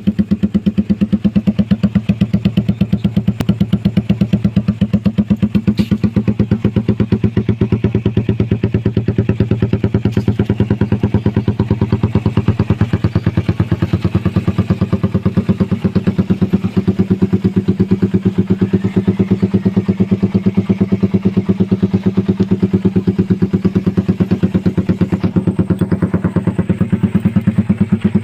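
Motorcycle fitted with a Daeng Sai4 aftermarket exhaust idling steadily, a fast even chain of exhaust pulses at a constant pitch.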